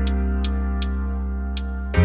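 Music: a held low chord with a light, regular high tick about every 0.4 seconds; a new chord comes in at the very end.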